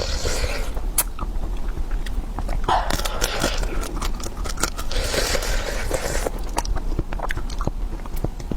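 Close-miked eating: a person biting and chewing food, with repeated sharp clicks and wet, noisy stretches.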